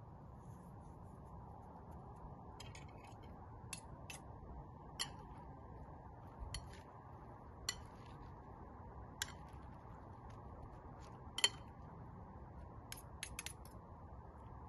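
Light, scattered clinks of metal cutlery against dishes and glass, about a dozen short ticks, the sharpest a little past the middle.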